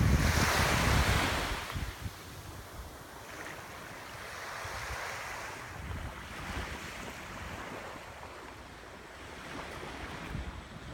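Ocean surf on a beach: a wave breaks and washes in loudly at the start, fading after about two seconds into softer, rising and falling washes of smaller waves. Wind buffets the microphone with a low rumble.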